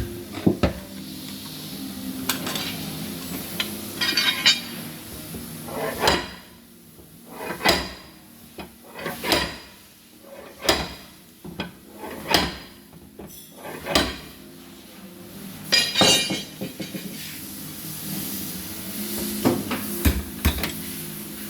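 Sharp metallic clanks and knocks at uneven intervals from dent repair on a car's sheet-metal rear fender, being knocked and pulled out. A few strikes ring with a short rattle, and a low steady hum runs under the start and the end.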